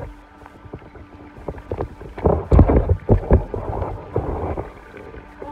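Scuffing footsteps and the rustle and knocks of a handheld camera as someone in flip-flops climbs down over rocks and plants, with wind buffeting the microphone. A louder cluster of knocks and rumbling comes a little past the middle.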